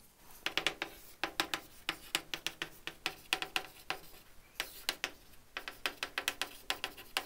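Chalk clicking and tapping on a blackboard as a line is written, in quick, irregular strokes several times a second.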